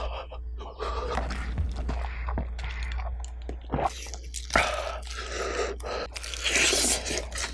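Crispy, sauce-coated fried chicken being torn apart by hand, then a crunchy bite and chewing near the end.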